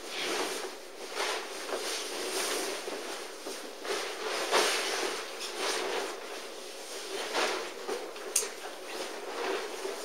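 Nylon camouflage fabric of an Ameristep Outhouse pop-up blind rustling and swishing in repeated sweeps as the folded blind is opened out and springs up into its tent shape, with one sharp click about eight seconds in.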